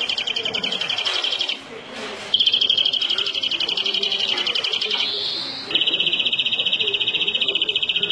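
European greenfinch singing: long, rapid, buzzy trills held at one high pitch, with a short break about one and a half seconds in and a brief upward swoop about five seconds in before the trill resumes.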